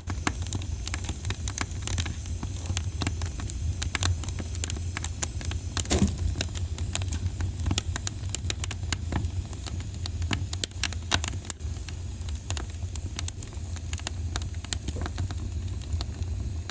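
Wood fire in a fireplace crackling, with many small pops over a steady low rumble and hiss, and one louder pop about six seconds in.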